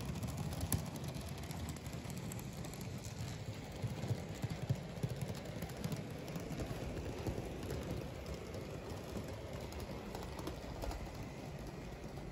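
N-scale model freight train's boxcars rolling along the track: a steady low rumble with a rapid, uneven run of light clicks and rattles from the small wheels on the rails.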